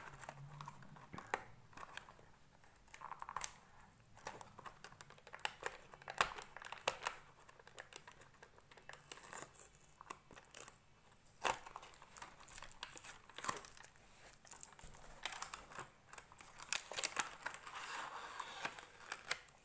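Unboxing handling noise from a smart band's small cardboard box: irregular clicks and scrapes as the box is opened and its tray slid out, then plastic packaging crinkling, most densely near the end.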